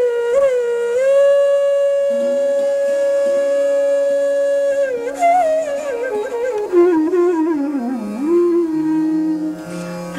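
Hindustani bansuri flute music. The flute holds one long note, then from about five seconds in plays a winding, ornamented phrase that falls in pitch, over lower sustained accompanying notes.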